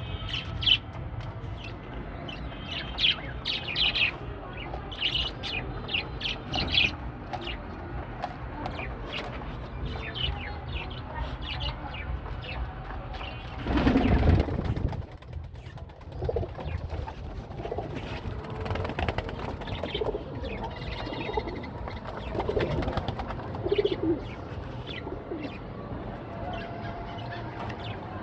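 Pigeons cooing, with many short high chirps, and a loud flurry of wing flaps about halfway through.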